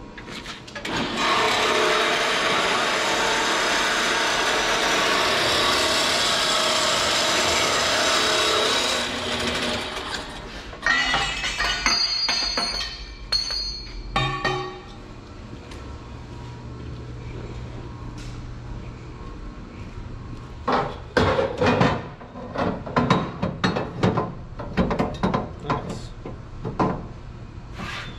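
A power tool runs steadily for about eight seconds and stops, followed by a few clanks and ringing knocks of metal. Near the end comes a run of hand-filing strokes, about two a second.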